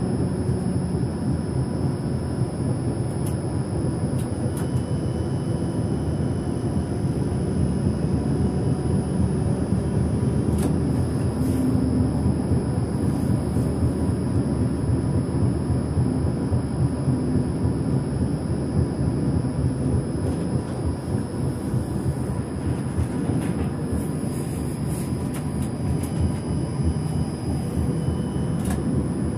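Electric tram running along street track, heard from the driver's cab: a steady rumble of wheels on the rails and the running gear, with a faint high steady whine over it.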